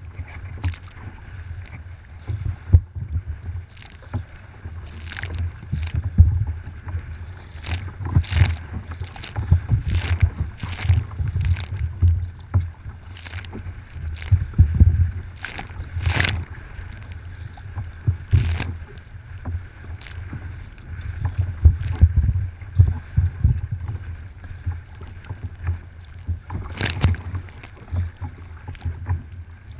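Wind buffeting a kayak-mounted microphone with a steady low rumble, while choppy waves slap and splash against the kayak's plastic hull at irregular moments, every second or so. The loudest splashes come about halfway through and near the end.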